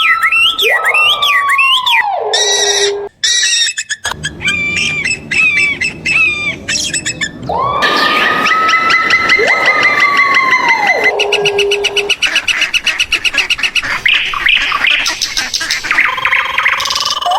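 A string of different animal calls, mostly birds, cut together so that the sound changes every few seconds. Twice a long call rises, holds and falls, and between them come rapid chirps, squawks and quacking-like calls.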